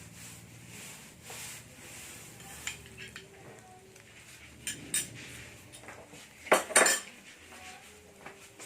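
A utensil clinking and scraping against a cooking pan while stirring garlic and onion in butter, with scattered clinks and a louder pair about six and a half seconds in.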